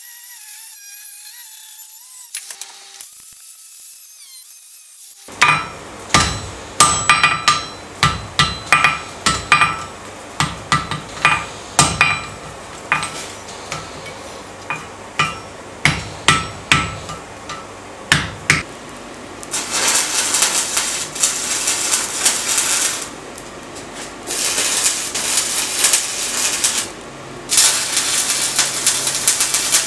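Hand hammer striking red-hot steel on an anvil, about twenty ringing blows roughly one or two a second. Then three spells of steady hissing noise from electric welding at the workbench.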